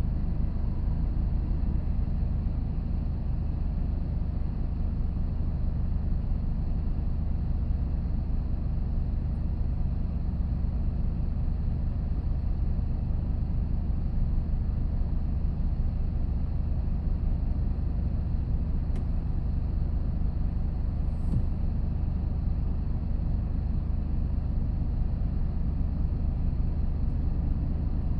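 Steady engine and road rumble heard inside a moving vehicle's cabin while driving.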